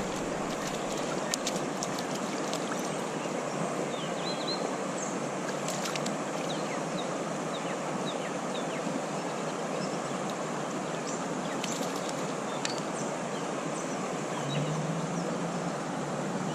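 Steady rush of flowing creek water, with faint bird chirps now and then over it.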